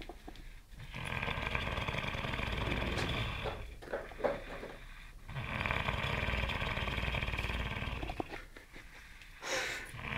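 Snoring: two long, rattly snores of about two and a half seconds each, with breathing pauses between them.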